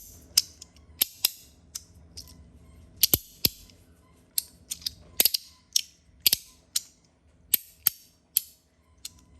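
Allure fidget slider being worked back and forth by hand, its metal halves snapping together in sharp clacks, irregularly spaced at about two a second.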